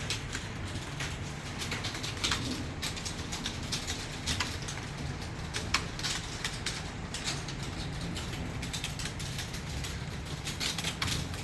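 Keyboard keys being typed on: a quick, uneven run of light clicks during a typing speed test.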